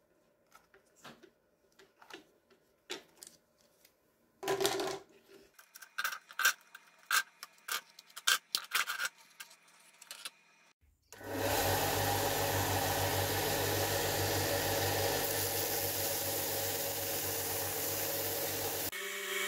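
Plastic spring clamps being unclipped one after another, a run of sharp clicks and clacks. About eleven seconds in, a Clarke Woodworker bench belt and disc sander starts running with a steady whir and hum.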